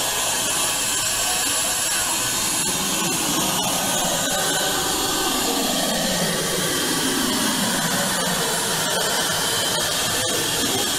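Suction pump of a lollipop vending machine running with a steady rushing hiss while its suction-cup tube lifts a swirl lollipop and carries it to the prize chute; a fainter tone sinks and rises again midway through.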